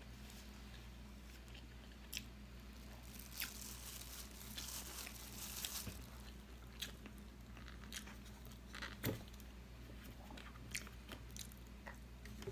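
A person chewing and biting food close to the microphone: soft wet mouth sounds with scattered small clicks and crunches, the strongest about nine seconds in. A steady low hum runs underneath.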